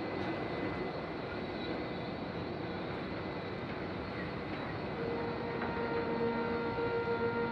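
Steady engine drone of a ship's background ambience. About five seconds in, a single sustained music note fades in over it and holds.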